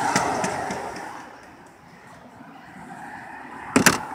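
Rustling handling noise that fades, then a sharp double knock near the end: a truck camper's rear entry door shutting.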